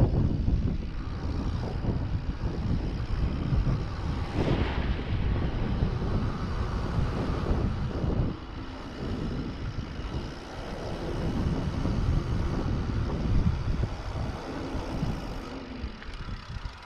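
Wind buffeting the microphone of a moving mountain bike, mixed with the rolling rumble of its tyres on asphalt.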